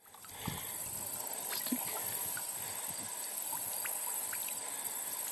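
A chorus of summer insects in streamside grass, a steady, very high-pitched drone with scattered short chirps and ticks; it fades in over the first half second.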